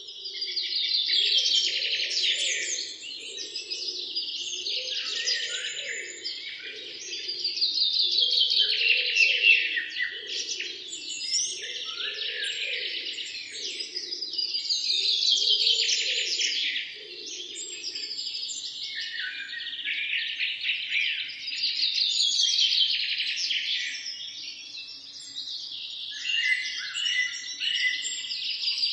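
Many small birds chirping together in a dense, continuous chatter that swells and fades every several seconds.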